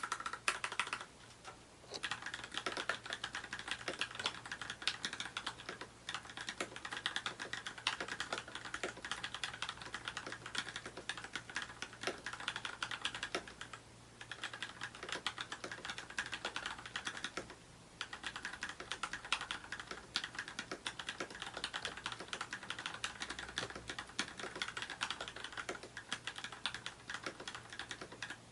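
Mechanical keyboard with lubed Gateron Clear linear switches (35 g) being typed on in quick, continuous runs of key clicks, with a few short pauses.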